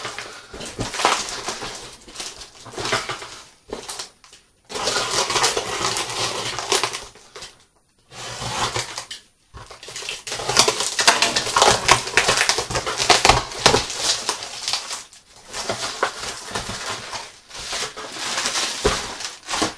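Packaging crinkling and rustling as a water filter cartridge is unpacked by hand, with crackles and small knocks, stopping briefly a few times.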